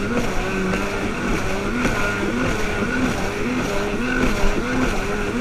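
Personal watercraft engine running at speed, its pitch dipping and rising several times as the craft skips over chop, over a steady rush of water and wind.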